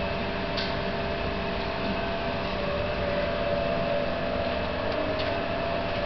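Steady mechanical hum with a faint constant tone, broken by a couple of faint clicks.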